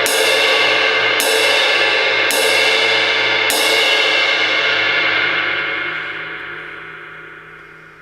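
Ultra-thin 18-inch crash/ride cymbal struck on its crash area with the tip of a drumstick, four strikes about a second apart, building a loud ringing wash. The ringing then fades away slowly over the last three seconds.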